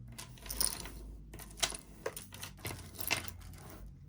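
Costume jewelry being handled: a scatter of small, irregular clicks and clinks from metal chain and beads knocking together.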